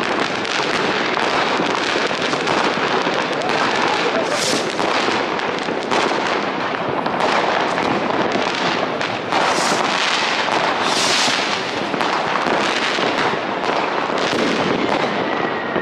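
New Year's Eve fireworks and firecrackers going off all around: a dense, continuous clatter of bangs and crackles, with a few louder crackling bursts and a thin, slightly falling whistle near the end.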